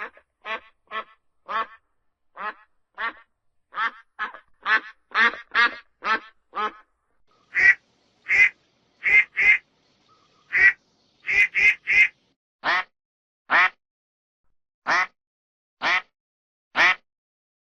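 A duck quacking in a long series of short quacks, coming quickly at first and then more spaced out from about seven seconds in.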